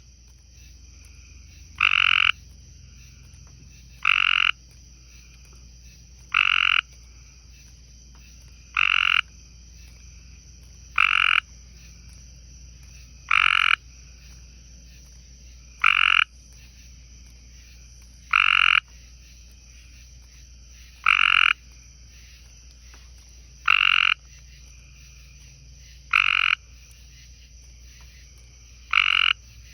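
Tree frog calling: a short, loud call repeated evenly about every two and a half seconds, about a dozen times.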